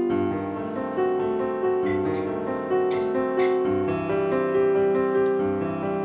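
Soft background piano music, slow held notes and chords. A few brief soft scrapes about two to three seconds in, a spatula spreading cream on a cake.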